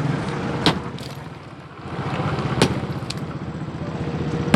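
A motor vehicle engine running steadily, with three sharp knocks spread across the few seconds.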